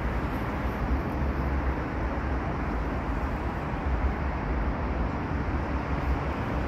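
Steady outdoor urban background noise: a low rumble with an even hiss above it, unbroken throughout.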